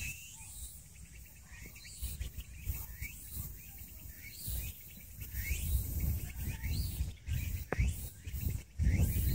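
Birds chirping over and over in short rising calls above a faint high outdoor hiss, with bursts of low rumble that grow louder near the end.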